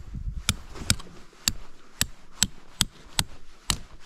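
A tent stake being hammered into the ground: a steady run of sharp taps, about two a second.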